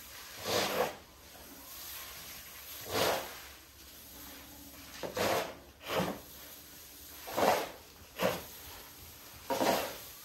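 Shovel scooping and tossing grain feed of barley and corn onto a pile to mix it: about seven rushing, rustling swishes of falling grain, a second or two apart.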